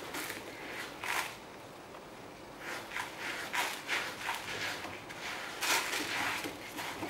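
Kittens playing and wrestling, their paws scuffling and scrabbling on the pen floor in irregular bursts, busiest about a second in and again from about halfway on.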